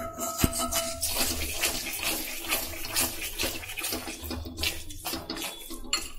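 A ladle stirring and scraping ground ginger and melting country sugar around a hot, ghee-coated iron pan, with repeated scraping strokes over a sizzle, and a sharp click about half a second in.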